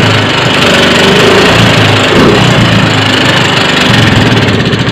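Yamaha Mio 125 single-cylinder four-stroke scooter engine running loud and rough with a harsh clattering knock, its pitch rising and falling as it is revved, dropping off at the very end. The mechanic puts the extreme clatter down to metal-on-metal wear from poor oil lubrication, suspecting the valve stem seals, valve guides, rocker arm and cylinder liner.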